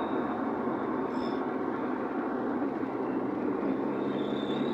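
Car on the move: a steady rush of road and tyre noise.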